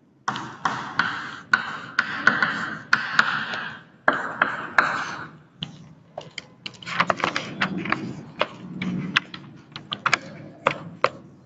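Chalk writing on a blackboard: quick taps and scratches as a word is chalked, then after about five seconds a sparser run of sharp clicks and knocks.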